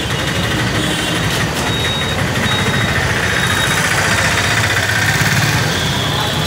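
Steady low rumble of a motor vehicle engine idling close by, amid street traffic noise.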